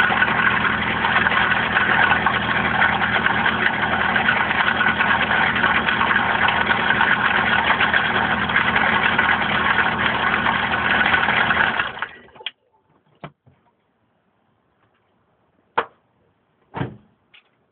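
Vauxhall/Opel X14XE 1.4 16-valve four-cylinder petrol engine running steadily with a noise that the owner suspects may be the bottom end going. It falls silent about twelve seconds in, and a few short knocks follow.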